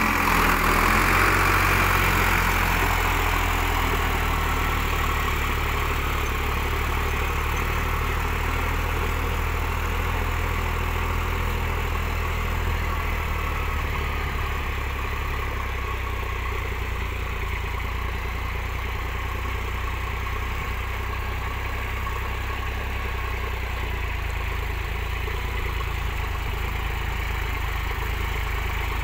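Sonalika DI 50 tractor's diesel engine revving up as the tractor sets off, then running steadily under load while it pulls a seven-tine cultivator through dry soil.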